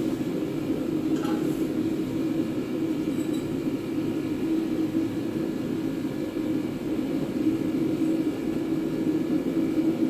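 A steady mechanical drone with a low hum that does not change, and a couple of faint metallic clinks in the first few seconds.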